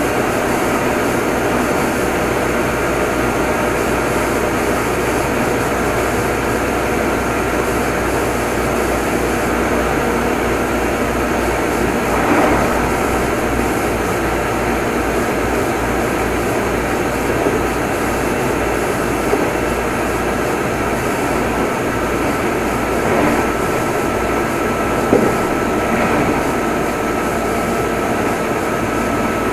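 Meitetsu 6500 series electric train running at steady speed, heard aboard motor car Mo 6461: a constant rumble of wheels on rail and running gear, with a faint steady whine. A few brief knocks come through from about twelve seconds in.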